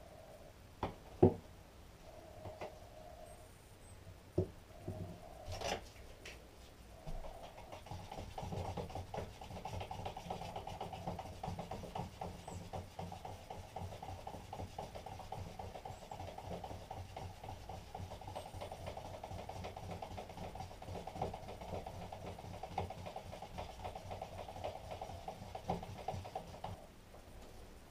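Gel coat being stirred with a stick in a plastic cup: a steady scraping with rapid small ticks of the stick against the cup, lasting about twenty seconds. It follows a few separate clicks and knocks.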